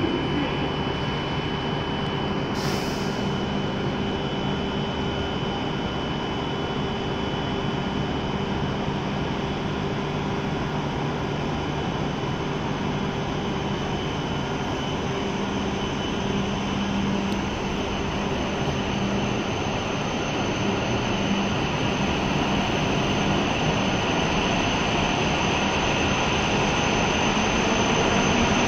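W7 series Shinkansen train standing at the platform with its onboard equipment humming steadily, with a brief click about three seconds in. In the last several seconds it pulls away, and its motor whine and running noise grow steadily louder.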